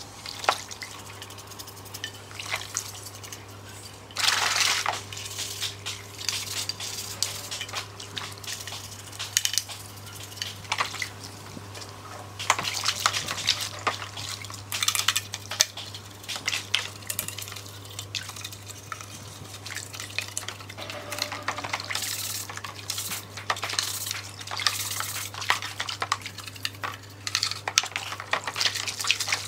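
Hand-washing a black speaker panel in a plastic basin of soapy water: water sloshing and splashing while a small brush scrubs the panel, with irregular knocks and clicks as the part shifts against the basin.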